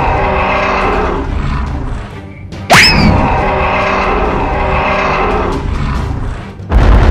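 Cartoon triceratops roars over background music, with a sudden steeply rising whoosh about a third of the way in and a loud low boom near the end.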